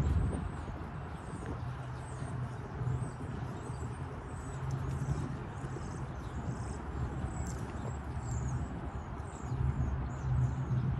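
Outdoor background: many faint, short bird chirps over a low rumble that swells and fades.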